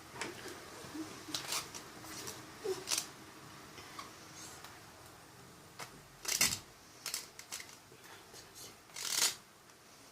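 Irregular short rustles, taps and clicks of slime-making supplies being handled, with two louder, longer rustles about six and a half and nine seconds in.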